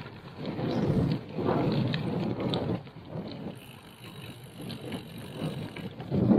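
Gravel bike's tyres rolling over a rough dirt-and-gravel road: a rushing noise that swells and eases irregularly.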